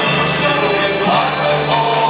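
A choir of priests, all men's voices, singing together and holding long notes, with a change of note about a second in.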